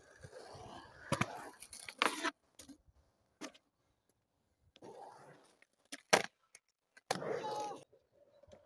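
Skateboard wheels rolling on concrete, broken by a string of sharp clacks and knocks, the loudest about six seconds in, with close rustling and knocks from the camera being handled.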